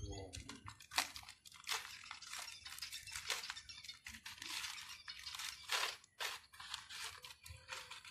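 Packing material being pulled off by hand: irregular crinkling, crunching and tearing of the wrapping.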